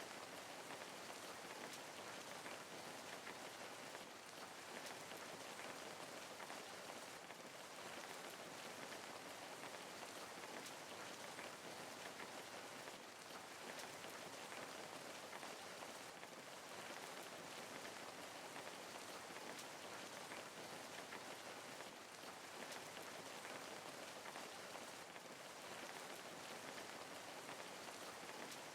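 Steady, soft rain falling and pattering on a surface, an even hiss with fine drop patter and no thunder.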